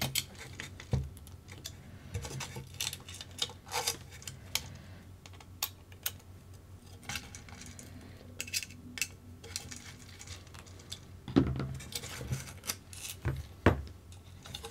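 Screws and lock nuts being fastened on an RC car chassis kit by hand: scattered small clicks and metal clinks of hardware and tools, with a few louder knocks about three quarters of the way through.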